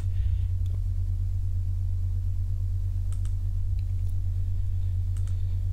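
A steady low hum on the recording, with a few faint computer mouse clicks about three to five seconds in.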